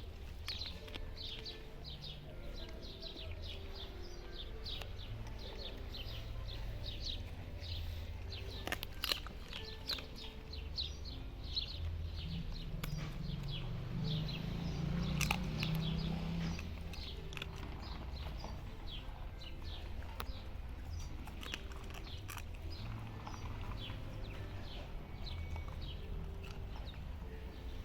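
Small birds chirping over and over in quick, short calls, over a steady low hum.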